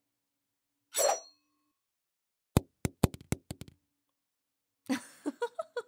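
A kitchen knife chopping on a cutting board: a quick run of about seven sharp knocks starting about two and a half seconds in. A breathy sound comes about a second in, and short vocal sounds come near the end.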